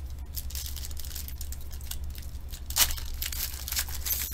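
Foil wrapper of a Panini Limited football card pack being torn open and crinkled by hand: a run of dry crackles, with one louder rip about two-thirds of the way through.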